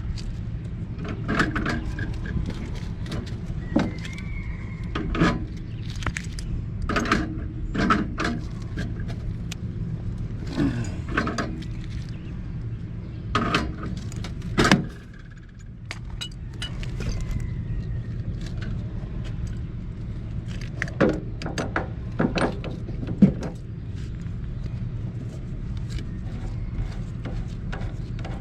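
Scattered metallic clinks and knocks of hand tools and pipe fittings being handled during gas pipe work, over a steady low hum that dips briefly about halfway through.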